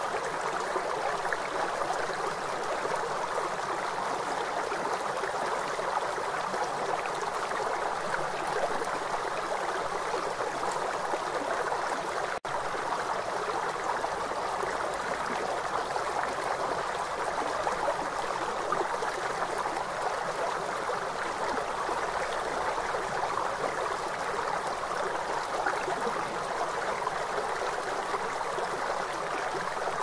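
River water flowing, a steady, even wash of water noise, with a split-second break in the sound about twelve seconds in.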